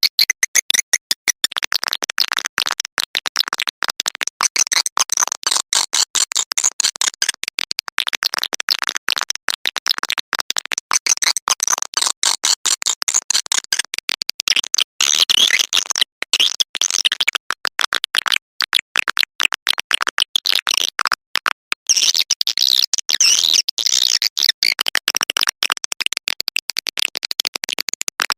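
Swiftlet lure call: dense, very rapid high chittering and clicking of edible-nest swiftlets, the recorded sound played to attract swiftlets into a swiftlet house.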